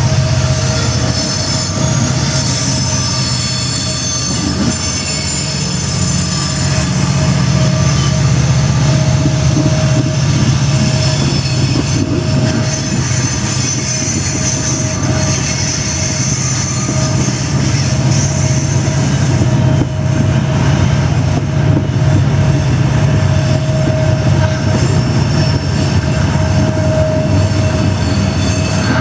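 Turbo howl from SD70ACU helper locomotives, whose turbocharged EMD diesels work hard to push a train upgrade, over a steady low engine drone. Steel wheels squeal on the curve, louder at times.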